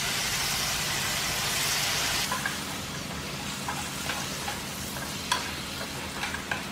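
Sauce poured into a hot pan of fried tofu cubes sets off a loud sizzle that drops away suddenly after about two seconds. A spatula then stirs the tofu, with a few light knocks and pops over a steady frying sizzle.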